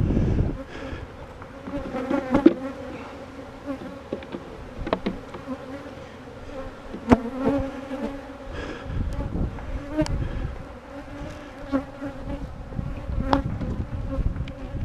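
Honeybees buzzing around an open hive, a steady hum of many bees. A handful of sharp clicks or knocks sound over it at intervals of a few seconds.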